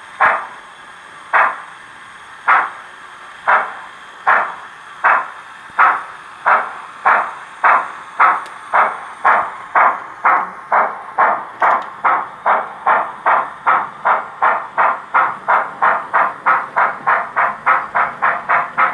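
Digital sound decoder in an OO gauge model GWR 'Prairie' 2-6-2T tank locomotive playing steam exhaust chuffs through its small speaker. The beats speed up steadily from about one a second to three or four a second as the locomotive pulls away.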